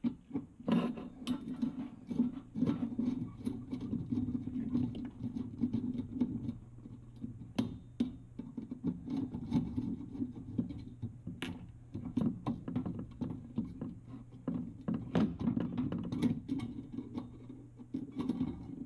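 Phillips screwdriver turning out the small screws that hold a gas oven igniter to the metal burner tube: irregular small clicks and scrapes of metal on metal, over a low steady hum.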